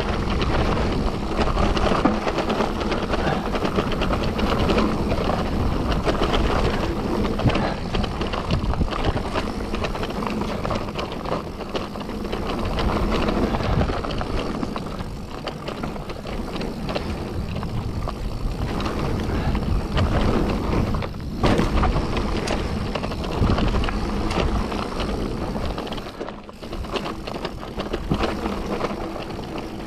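Mountain bike ridden over a rough, wet trail: continuous tyre rumble with frequent rattles and knocks from the bike.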